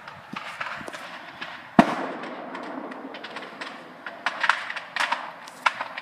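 A single sharp explosion bang from the fire about two seconds in, ringing on briefly. A run of sharp pops and cracks follows in the last two seconds.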